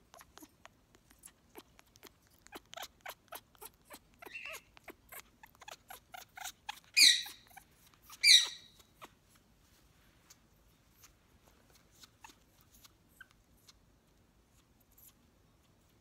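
African grey parrot making a run of sharp beak and tongue clicks, a few a second, with two loud short squawks about a second apart near the middle, then only a few faint clicks. The owner takes this for the bird being hormonal.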